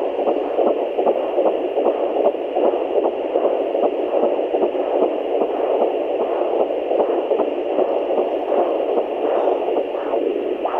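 Fetal Doppler picking up a fetal heartbeat at about 13 weeks: a rapid, evenly repeating whooshing pulse, the 'galloping horse' sound, over the device's steady hiss.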